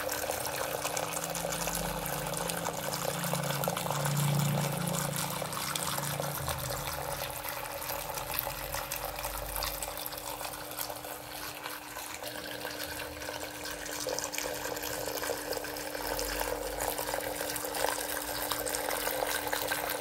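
Water from a tiered cement tabletop fountain trickling and splashing as it spills from pot to pot into the basins below, with a steady low hum underneath.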